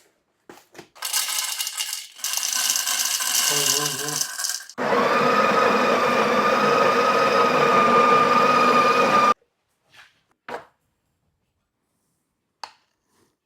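Coffee grinder of a Sage espresso machine grinding coffee beans: a scratchy grinding sound for a few seconds, then a steady motor whine for about four seconds that cuts off suddenly, followed by a few small knocks.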